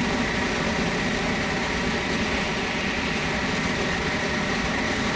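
JR Central N700-series Tokaido Shinkansen train passing through the station at high speed without stopping, a steady loud rush of running noise with a high hiss in it.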